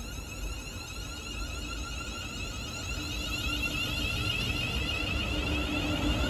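Class 350 Desiro electric multiple unit pulling away from the platform, its traction motors whining and rising in pitch as it accelerates and gets louder.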